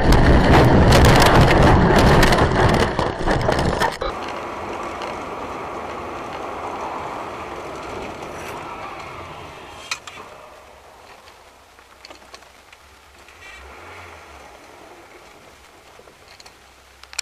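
Loud, rough rumbling and crackling noise for about four seconds, then an abrupt cut to faint, steady road noise heard inside a moving car, with a single click about ten seconds in.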